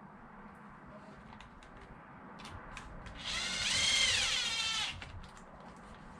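A handheld power tool runs in one short burst of under two seconds, its motor whine rising as it spins up and dropping as it stops, with light clicks and taps of parts being handled before and after.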